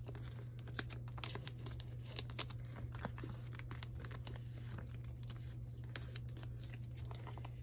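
Scattered soft crinkles and small clicks of plastic photocard sleeves and binder pages being handled, over a steady low hum.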